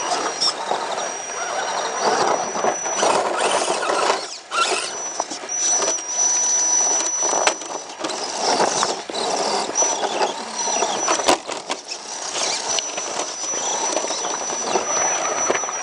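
Small electric RC rock crawler working its way over rocks: tires and chassis crunch and scrape on rock and grit, with a thin high electric-motor whine that comes and goes with the throttle. One sharp click sounds about 11 seconds in.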